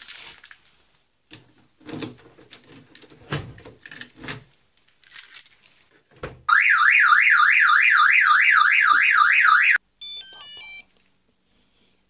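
Clicks and knocks of a key and door handle at a car door, then, past halfway, the Sheriff ZX-1090 PRO car alarm siren goes off for about three seconds. It warbles up and down fast, about four times a second, and cuts off sharply: the armed alarm triggered by the door being opened. Right after, a short series of stepped electronic beeps from the two-way key fob.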